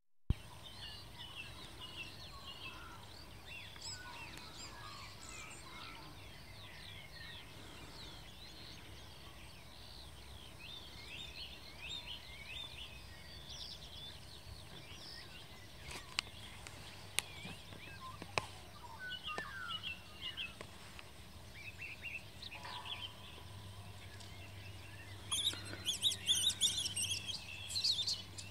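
Small birds chirping and singing, many short high calls one after another, with a louder, denser burst of calls near the end.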